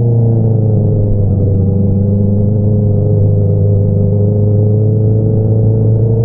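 Honda CBR650R's 649 cc inline-four running through an Akrapovič single-outlet exhaust at a steady cruise, its pitch easing down slightly and then rising again as the revs pick up near the end.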